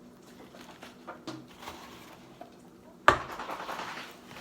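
Kitchen clatter: small clinks and knocks of dishes and utensils, with one sharp, loud knock about three seconds in followed by about a second of noise.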